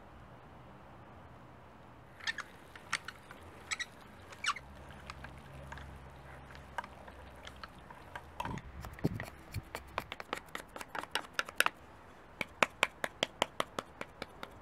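Sharp clicks and knocks of hand work with a hand-cranked aluminium meat grinder and a wooden spatula. They are scattered at first and grow denser in the second half, ending in a quick regular run of about five clicks a second. A low hum runs underneath for a few seconds in the middle.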